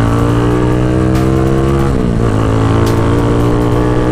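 Motorcycle engine running loud through an open Villain shorty muffler, climbing slowly in pitch under throttle. The revs dip sharply about two seconds in, then pick up and hold steady.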